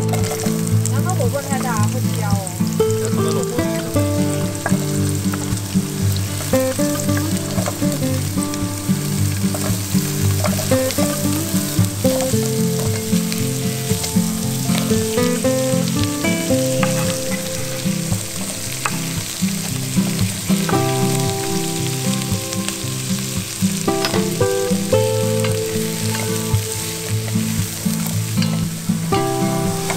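Onion, carrot and celery sizzling as they sauté in beef fat in a pot on a portable gas stove, stirred with a wooden spoon that clicks against the pot now and then. Background music with steady notes plays under it.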